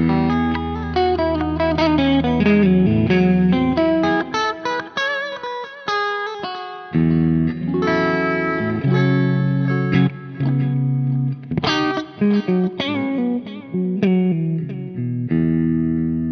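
Electric guitar played through a Soldano SLO-100 clone tube amp: a riff of picked notes and chords with short stops. There is a break about five seconds in, and a chord is left ringing near the end.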